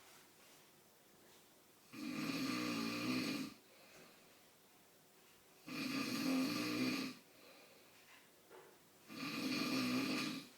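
A man snoring in his sleep: three loud snores, each about a second and a half long, coming roughly every three and a half seconds, with quiet breathing between them.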